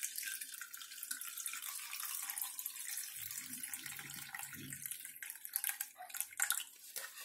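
Mint-coriander pani puri water poured from a bowl through a steel mesh strainer into a glass bowl: a steady splashing trickle of thin liquid, with a few light clicks near the end.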